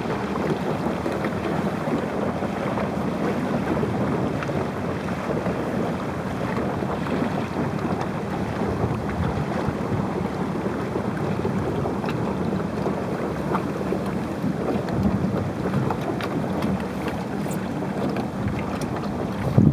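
Steady wind noise on the microphone over water moving around a sailboat under way, gusting louder near the end.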